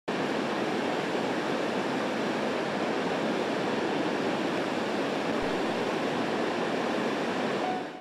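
Sogi Falls, a wide 12 m waterfall, and its rapids: steady rushing of falling water that dips just before the end.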